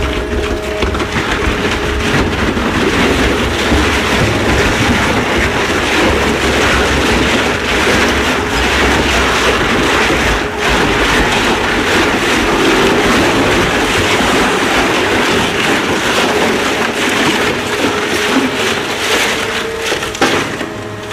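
Industrial twin-shaft shredder tearing up a large off-road tyre: loud, continuous crushing and ripping of rubber between the rotating cutter discs over the steady hum of the drive. Near the end there is a sharp knock, then the noise eases as the cutters run empty.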